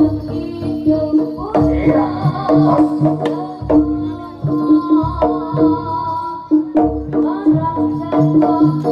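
Jaranan (Javanese hobby-horse dance) music: a held melodic tone and other pitched lines over a steady pattern of hand-drum strokes.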